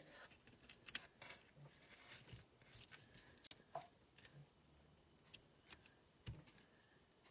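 Faint, scattered small clicks and rustles of paper-craft pieces and foam adhesive dimensionals being handled on a craft table, the sharpest click about a second in.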